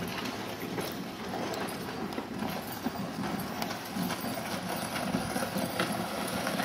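Horses' hooves clip-clopping at a walk on a packed dirt street.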